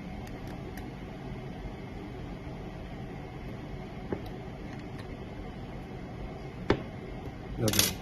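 Steady room hum with a few light clicks and one sharper click about two-thirds of the way through, from handling a hand-operated passport cutter while its screws are fastened.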